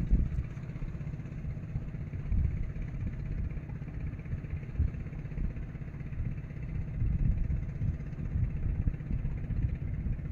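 Fishing boat's engine running steadily while the boat is under way, a low rumble.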